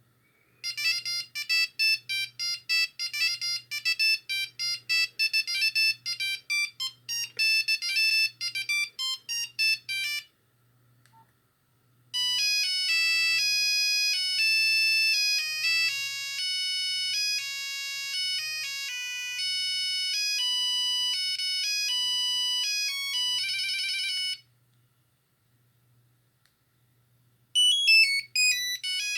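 Nokia 6310i ringtones playing one after another through the phone's speaker. A fast tune of short notes runs for about ten seconds, then after a short pause a second tune of longer held notes, and near the end a third quick tune begins.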